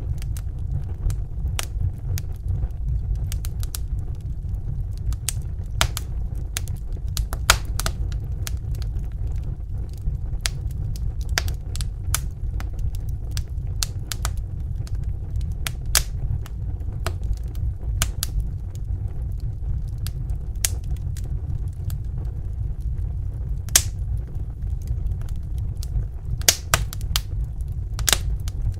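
Wood fire crackling in a fireplace: irregular sharp pops and snaps over a steady low rumble of burning, with a few louder pops standing out.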